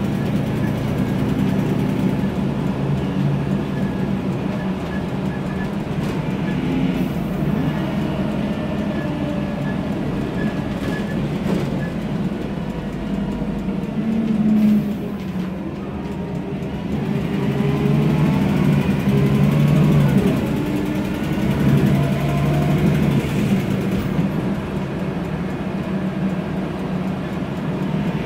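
MAN Lion's Classic city bus heard from inside the passenger cabin while driving: the steady drone of its turbocharged CNG engine with the whine of its ZF Ecomat six-speed automatic gearbox. The drone drops about halfway through, then swells again with a faint rising whine.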